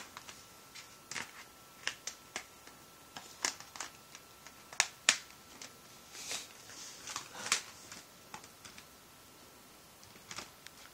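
Scattered plastic clicks and taps as the battery of a Gateway LT2802u netbook is fitted back into its bay and the netbook is handled, the sharpest clicks about five seconds in and at seven and a half seconds.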